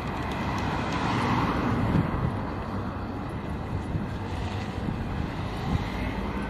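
Steady road traffic noise from passing cars, with wind rumbling on the microphone.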